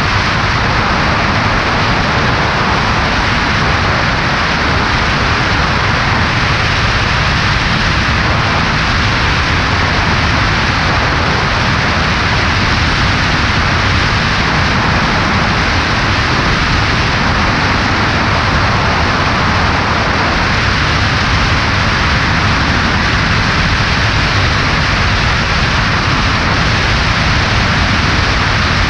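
Steady rush of wind mixed with the drone of a Cessna 140A's engine and propeller in flight, heard through a camera mounted on the left wing.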